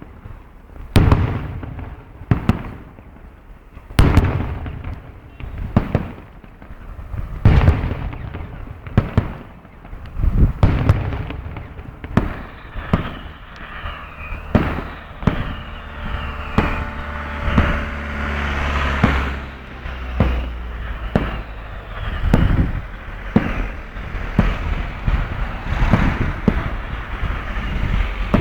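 Fireworks going off from far off: an irregular run of sharp bangs, a second or so apart, thickening into denser crackling bangs with a low rumble about halfway through.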